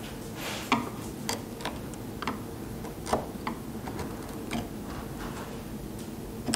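Hand chisels paring wood in the inside corner of a routed picture-frame rabbet: a scattered series of light, irregular clicks and ticks as the edge bites and small chips break away.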